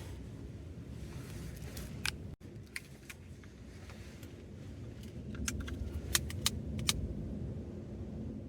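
Wood-burning tent stove with a steady low rumble and a handful of sharp crackles and pops, most of them bunched together about six to seven seconds in.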